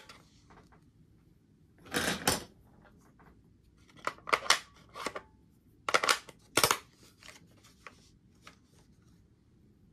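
Small hard parts and hand tools clicking and clattering on a workbench, in three short bursts about two, four to five, and six to seven seconds in, with a few faint ticks after.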